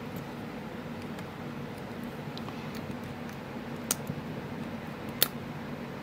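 Small sharp clicks from handling metal lock tools and parts on a brass padlock, with two louder clicks about four and five seconds in, over a steady low hum.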